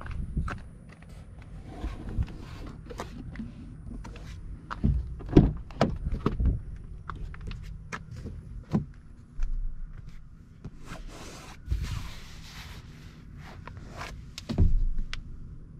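Footsteps, clicks and thumps of a Ram 1500 Rebel pickup's driver door being opened and the cab being handled, with the loudest thumps a few seconds in and again near the end, over a steady low hum.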